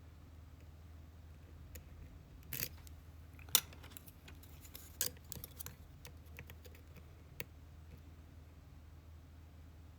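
Small, irregular metallic clicks and scrapes of a lock pick and tension wrench working the spool-pinned pin stack of an Abus C83 padlock, the sharpest click about three and a half seconds in. A low steady hum runs underneath.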